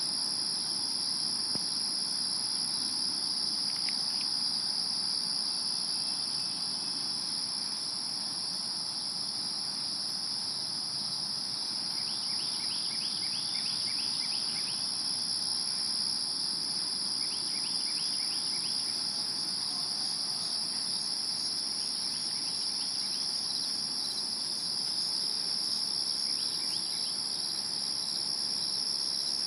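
Crickets in a steady, unbroken high-pitched chorus, with a few short runs of rapid chirping partway through.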